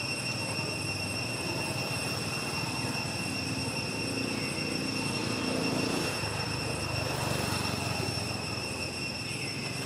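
Steady outdoor ambience: a constant high-pitched whine over a background hiss, with a low engine-like rumble that swells in the middle and fades again.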